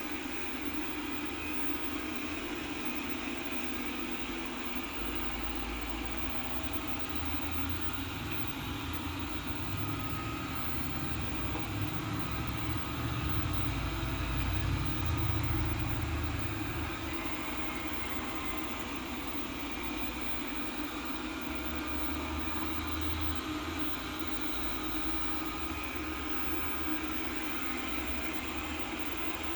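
Everybot 3i robot cleaner running in spot-cleaning mode: a steady motor hum that swells lower and a little louder around the middle.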